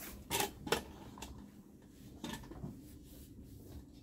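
Store background: a few light clinks and knocks, the first two about a second apart and the loudest near the start, over a steady low hum.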